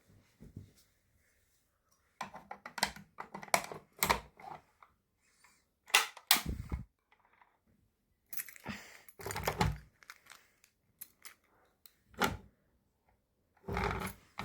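Irregular clicks, taps and thumps coming in clusters, the loudest about six seconds in and near the end; no alarm tone is sounding.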